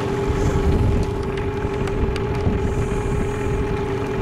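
Outboard boat motor idling steadily as it warms up, a constant hum with a few faint clicks over it.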